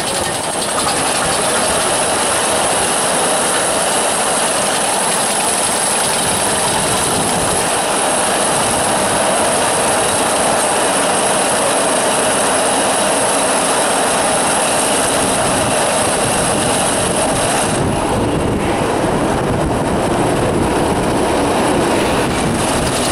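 Roller coaster chain lift clattering steadily as the Mack mine train is hauled up the lift hill, with a steady high whine over it. About three-quarters of the way through the sound eases slightly as the train nears the crest.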